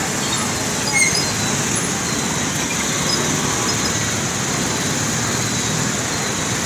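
Steady road traffic: motorcycles, scooters and cars running through a flooded street, their tyres driving through standing water.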